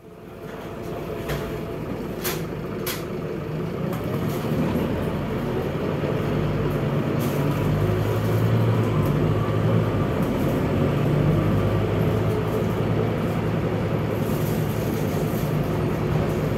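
Scania K230UB city bus on the move, its Scania DC9-16-230 five-cylinder diesel running through a ZF Ecomat automatic gearbox, heard from inside the bus. The engine sound grows louder over the first several seconds and then holds steady. A few sharp clicks come about one to three seconds in.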